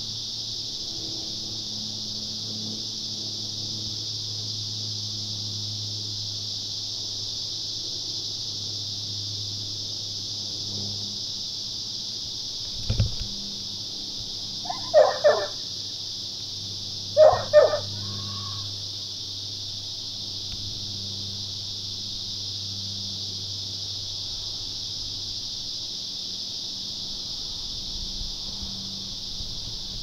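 Steady high-pitched buzzing of a cicada chorus. About halfway through, a single low thump, then two short animal calls, each given twice in quick succession.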